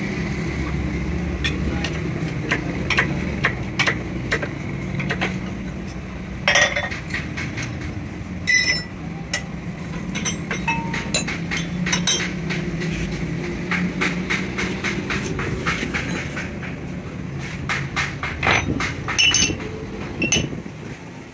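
Steady low machinery hum under repeated metallic clinks and taps of steel parts and hand tools being handled, with a couple of louder metal strikes partway through.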